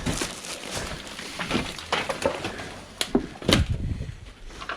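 Irregular knocks and clatter of objects and debris being handled in a small room, about half a dozen sharp hits over a few seconds, the loudest near the middle, with rustling between.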